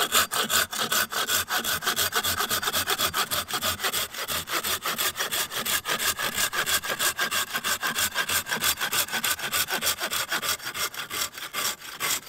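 A folding pruning saw (a cheap Stedi hand saw) cutting through a thick branch with quick, even back-and-forth strokes.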